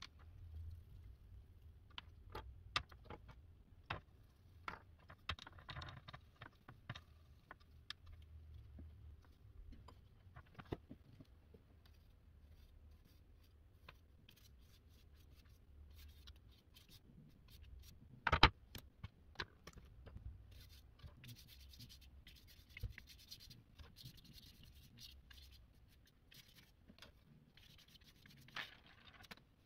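A paintbrush scratching and rubbing across watercolour paper as broad strokes of wet paint are laid on, with scattered light taps and one sharper knock about eighteen seconds in.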